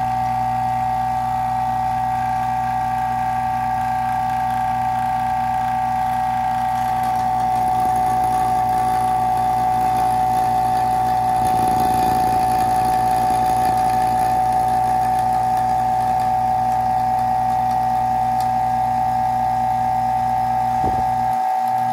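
Oil-lubricated vacuum pump running steadily, a loud hum with a strong high whine, pulling the air out of a resin degassing chamber. It gets slightly louder about eight seconds in.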